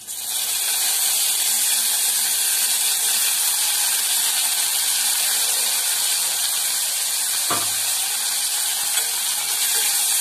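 Chopped tomatoes sizzling in hot oil with softened onions in an open aluminium pressure cooker; the sizzle jumps up suddenly as they go in and then runs as a steady, loud hiss. One faint knock sounds about three-quarters of the way through.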